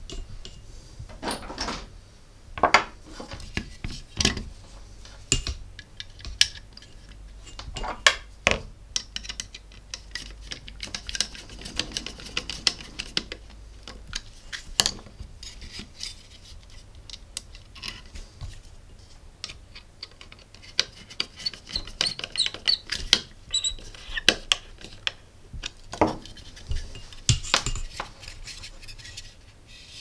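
Small handling noises from a mains cord being screwed into the terminals of a USB wall socket: irregular clicks, taps and scrapes of a screwdriver and the plastic-and-metal socket on a work mat.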